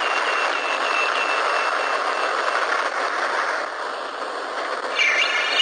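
Missile launcher sound effect: a steady rushing hiss of venting smoke, with a high beeping tone repeating rapidly through the first half. The hiss eases off later, and a wavering high warble comes in near the end.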